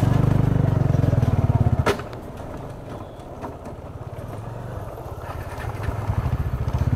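Motorcycle engine on its stock exhaust, heard from the rider's seat: running strongly under throttle, then easing off with a single knock about two seconds in to a quieter low-rev run, and picking up again near the end.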